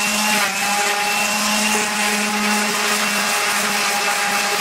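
Electric random orbital sander running steadily while sanding a wooden frame: a constant motor hum under a bright abrasive hiss. It cuts off suddenly at the very end.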